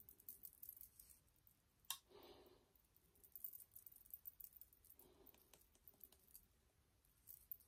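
Near silence: quiet room tone with faint small clicks, and one sharper click about two seconds in.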